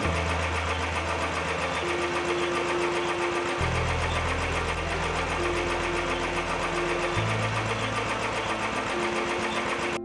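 Motorcycle engine running in first gear on the centre stand, turning the rear wheel and the freshly lubricated drive chain over its sprocket so the chain lube spreads. Steady mechanical running with a fast, even ticking texture.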